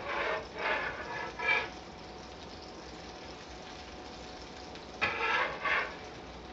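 A dog barking: a quick run of barks at the start and a few more about five seconds in, with a steady hum between.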